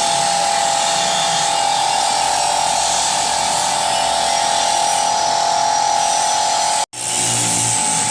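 Corn cob grinding machine running steadily, its motor giving a constant high whine over a noisy rush. The sound breaks off for an instant about seven seconds in, then picks up again at the same pitch.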